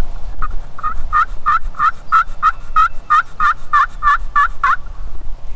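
Turkey yelping: a long, even series of about fourteen yelps, roughly three a second, stopping about a second before the end.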